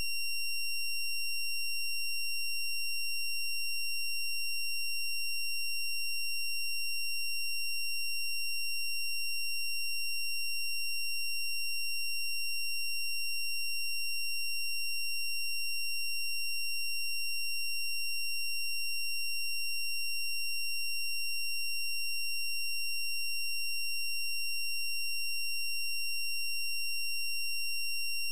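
A steady, high-pitched electronic tone with overtones, holding one pitch without any change.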